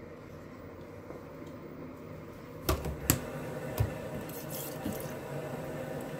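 A few sharp clicks and knocks a little before halfway, then light scratchy rustling, as a toothbrush is handled, over a steady low hum.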